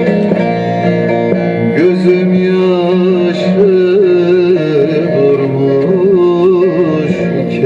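Folk music: plucked strings playing, then about two seconds in a held melody line with a wavering pitch comes in over them.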